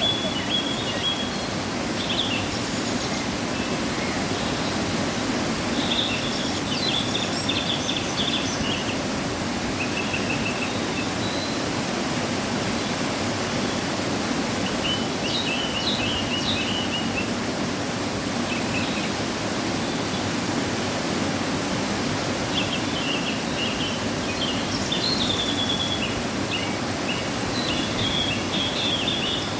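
Waterfall rushing steadily, running full after rain, with small birds chirping now and then over the roar of the water.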